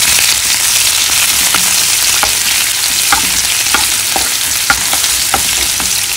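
Sliced red onion and garlic sizzling in hot oil in a frying pan, with a plastic spoon stirring and clicking against the pan every second or so: a tempering (jhaneko) of onion and garlic being fried for nettle soup.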